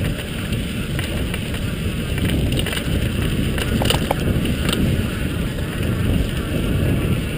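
Wind buffeting the microphone on a fast mountain-bike descent, over the rumble of knobby tyres rolling on a dirt trail. A few sharp clicks and rattles from the bike about four seconds in.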